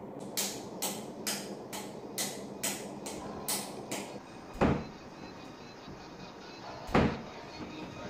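A thin handheld stick scraped in a quick run of short scraping strokes, about two a second, for roughly four seconds. Then come two sharp bangs a little over two seconds apart, wardrobe doors being shut.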